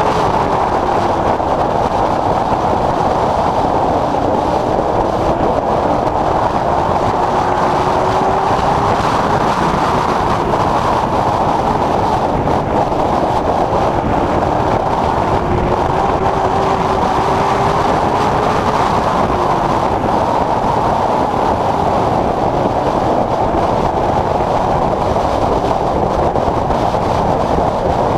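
Late Model Stock race car's V8 engine running hard, heard from inside the cockpit over loud road and wind noise. Its pitch rises and falls every few seconds as the car accelerates and lifts around the short oval.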